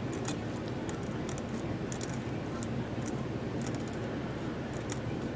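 Metal quill pen nib making small irregular ticks and scratches on a glass sheet as short strokes are drawn in enamel paint, over a steady low hum.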